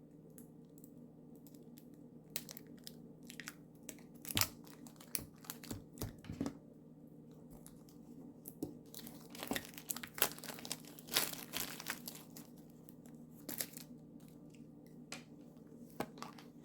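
Wrapping being torn and crinkled off an oracle card deck: irregular crackling and rustling, busiest toward the middle.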